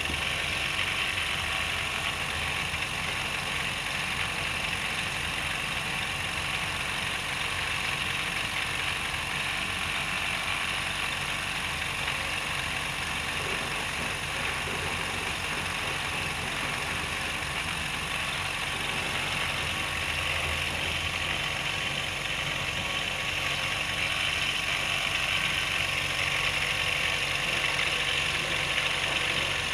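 A machine running steadily, an even hum and hiss that does not change.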